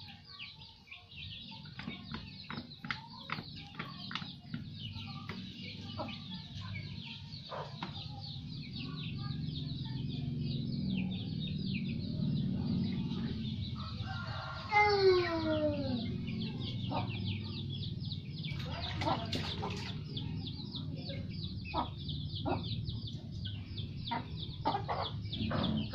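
Chickens clucking over and over in short calls, with one louder call falling in pitch a little past halfway. A low steady rumble underneath grows louder from about eight seconds in.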